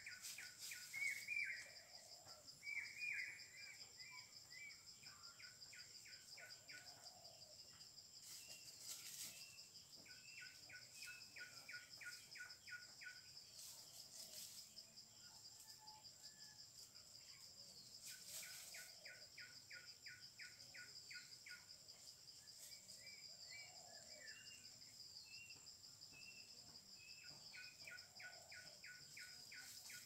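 Faint outdoor ambience: a bird gives short runs of rapid, evenly spaced notes every few seconds, with scattered chirps between, over a steady high-pitched insect drone.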